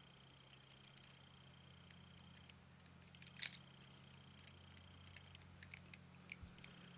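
Small screwdriver turning a clamp screw into the metal deck of a 30mm rebuildable dripping atomizer: faint metallic clicks and scrapes, with one sharper click about three and a half seconds in. A low steady hum runs underneath.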